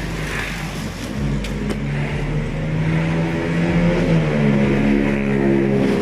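Background music with a deep bass line and a melody of held notes, growing louder.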